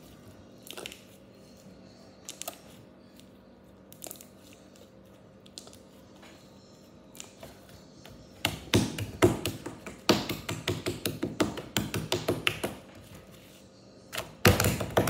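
Turquoise slime being squeezed, kneaded and stretched by hand: a few faint clicks at first, then from about halfway through a run of rapid crackling pops, and a last loud burst of crackles near the end.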